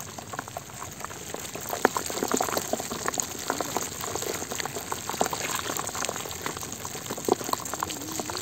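A basin heaped with freshly caught small puti (barb) fish, the live fish flapping against each other and the plastic basin: a dense, irregular patter of wet slaps and ticks, a little louder from about two seconds in.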